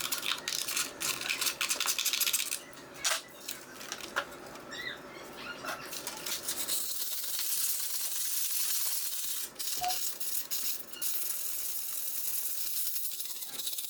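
Clinks and scrapes of a steel handsaw being handled, then from about seven seconds in a steady rubbing hiss as the blade is sanded by hand.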